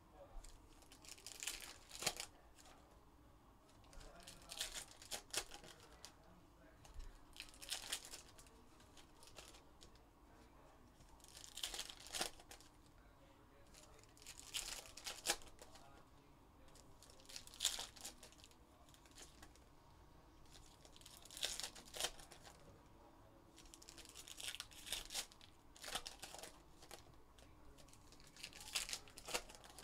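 Trading-card pack wrappers (2021 Upper Deck Goodwin Champions packs) being torn open and crinkled by hand, one pack after another. About ten short bursts of tearing and crinkling come every two to three seconds, with sharp clicks among them.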